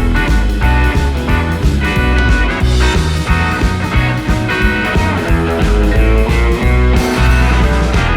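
Background music: a guitar-led rock track with a heavy bass line and a steady beat.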